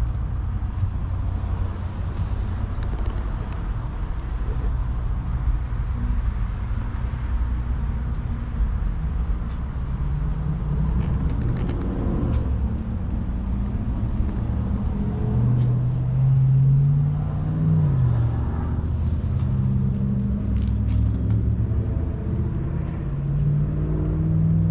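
A motor vehicle engine running as a steady low rumble, its pitch shifting up and down in the second half.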